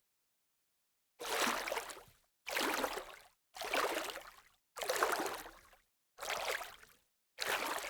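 Sea-wave water noise chopped into short bursts, about one a second, six in all after a second of silence. Each burst starts abruptly and fades out, with dead silence between them, as if the track were heavily gated or glitched rather than waves washing in naturally.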